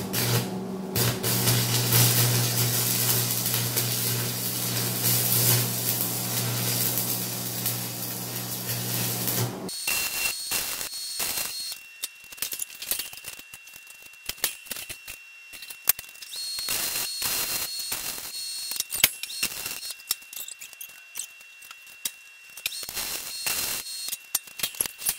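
Electric arc welder welding a steel pipe mast: a steady crackling arc over a loud mains hum for about ten seconds, then it stops. After that, a faint steady high whine and scattered clicks and knocks.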